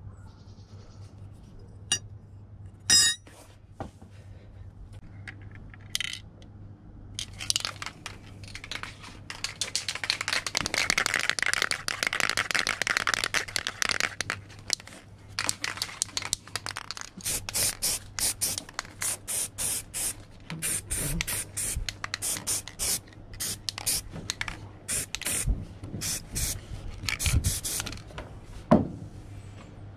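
An aerosol spray paint can hissing in one long spray of several seconds, followed by many short sharp bursts as a metal bicycle pedal cage is painted. A few metallic clinks and a brief rattle near the start come from the cage being handled.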